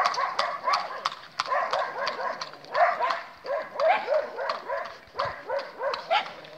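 A dog barking rapidly, two or three barks a second, over the clip-clop of a horse's hooves on an asphalt road.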